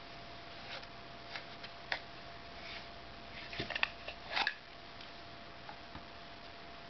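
Mora Bushcraft Forest knife in its plastic sheath being handled, with a few light clicks, then a quick run of clicks and a short scrape about four seconds in as the knife is drawn out of the sheath.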